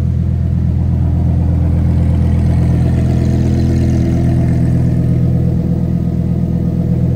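Lamborghini Huracán Tecnica's naturally aspirated 5.2-litre V10 idling steadily, with no revving.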